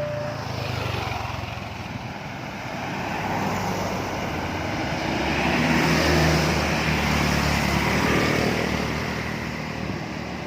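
A motor vehicle passes on the road, its engine and tyre noise swelling to a peak about six seconds in and then fading. A horn cuts off right at the start.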